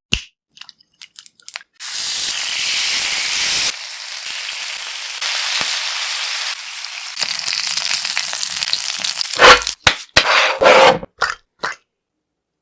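Boneless chicken pieces frying in hot oil: a loud, steady sizzle that starts about two seconds in and drops in level twice. Short clicks come before it, and a run of sharp knocks and crackles follows near the end.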